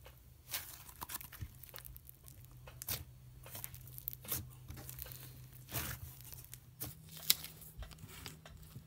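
Thick slime being stretched and kneaded by hand, giving soft, irregular crackling and tearing sounds, with one sharper click late on.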